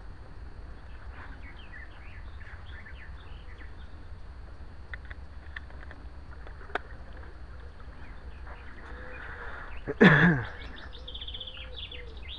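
Small birds chirping over a steady low rumble. About ten seconds in there is one short, loud sound that drops quickly in pitch.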